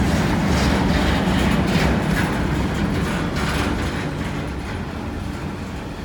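Freight cars of a long manifest train rolling past, with a steady rumble and irregular clatter of wheels over the rail joints, fading over the last couple of seconds.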